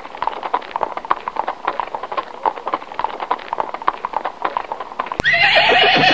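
Horse hooves clip-clopping in a quick, even rhythm. About five seconds in, a horse starts neighing loudly, its pitch falling.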